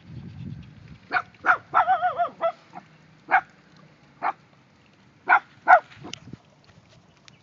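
A dog barking in a string of short, high-pitched yaps, about eight over five seconds. About two seconds in comes one drawn-out, wavering yelp.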